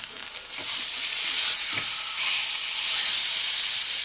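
Sirloin steak sizzling in oil in a frying pan as it is flipped with a metal spatula. The sizzle dips as the steak is lifted, then grows louder about a second in once the steak is laid back down on its unseared side, with a few light spatula scrapes on the pan.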